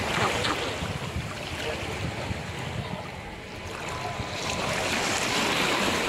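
Wind on the microphone over lapping, choppy sea water. Near the end a rising rush of splashing spray as the RC model outrigger boat's hull cuts through the water close by.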